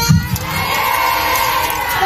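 A crowd of women protesters cheering and shouting together between chanted slogans, with a couple of low thumps at the very start.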